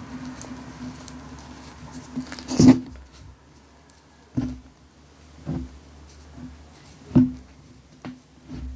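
Crunchy 'glitter bomb' pieces being crushed: about five separate short crunches, the loudest about a third of the way in, over a steady low hum.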